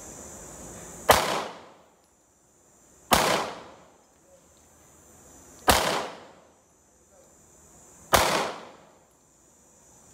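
Four single shots from a semi-automatic pistol, fired deliberately about two to two and a half seconds apart, each with a short echoing tail.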